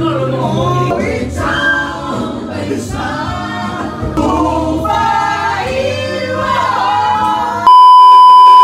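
Singing to a Chinese karaoke song, cut off near the end by a loud, steady high test-tone beep that lasts about a second.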